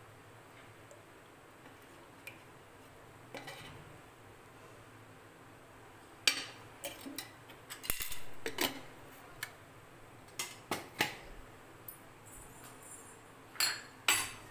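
Steel kitchen utensils clinking and knocking against each other: a dozen or so sharp, irregular clinks, some ringing briefly, starting about six seconds in.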